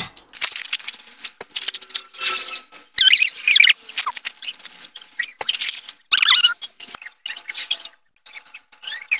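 Plastic instant-noodle seasoning sachets crinkling and being torn open in many short crackly bursts, with squeaky rubbing. Near the end, utensils stir noodles in a metal wok.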